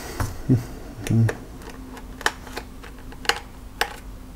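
Scattered light clicks and taps, about half a dozen, from handling the white plastic case of an ASUS R103B netbook as it is tilted up on its edge and a small screw is picked up from the table.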